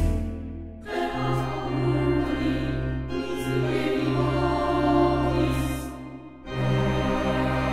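Film-score music with a choir singing sustained notes over a low drone, briefly dropping away about a second in and again near the end.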